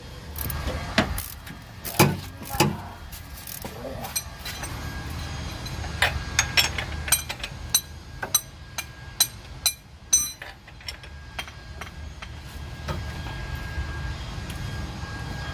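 Steel wrench clicking and clinking on an engine-mount bolt as it is turned in short swings: a few sharp clicks early, then a run of about two to three clicks a second between about six and ten seconds in, over a low steady hum.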